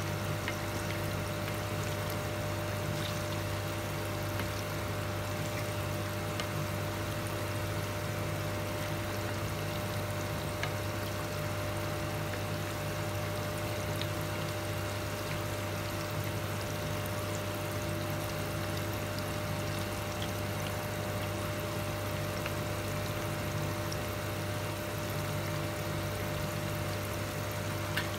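Sweet potato chunks deep-frying in a pot of hot oil: a steady bubbling sizzle over a steady low hum, with a few faint clicks of a wooden spatula against the pot.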